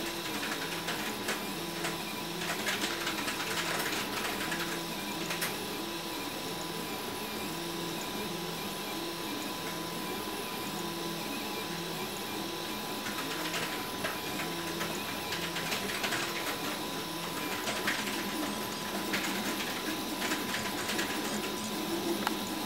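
RepRap Huxley 3D printer's stepper motors whirring as the print head moves back and forth laying down layers, in short tones that keep jumping between a few pitches with each change of move. A steady thin whine sits underneath.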